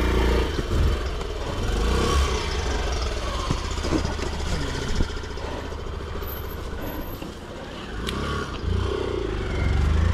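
Small motorcycle engine running, its revs rising and falling, with a few knocks.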